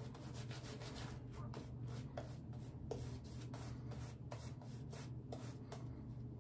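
Omega boar-bristle shaving brush face-lathering shaving soap on a bearded face: faint, irregular bristly rubbing and scrubbing with small clicks.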